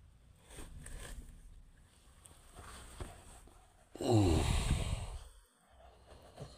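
A large hardback book being handled close to the microphone: soft rustling and rubbing. About four seconds in comes a louder sound, lasting about a second and falling in pitch.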